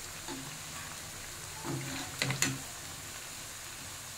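Cabbage manchurian balls deep-frying in hot oil in a kadai: a steady sizzle, with a brief louder patch about two seconds in as the slotted spoon turns them.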